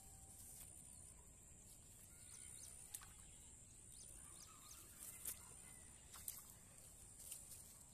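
Near silence: faint outdoor ambience with a few soft, brief clicks.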